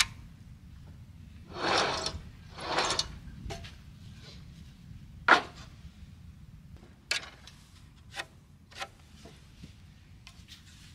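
Wooden 2x4 boards being handled on a metal saw stand. Near the start, two scraping rubs of one board sliding over another, then a few sharp knocks as the boards are set down and shifted; the loudest knock comes about five seconds in.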